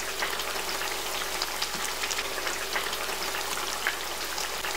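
Fish stew of fried fish in red pepper sauce sizzling in its pot, the oily sauce crackling steadily with many small pops as it simmers.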